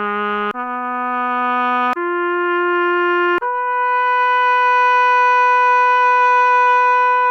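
Sampled trumpet from a brass SF2 soundfont playing single notes one after another, each higher than the last, the final one held for about four seconds.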